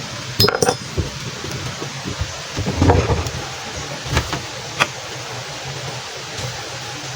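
Several short clinks and knocks of hard objects being handled, in three or four brief clusters, over a steady background hiss.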